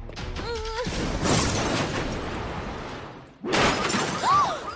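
Cartoon crash sound effect: a car being smashed, with glass shattering. A second loud crash follows about three and a half seconds in.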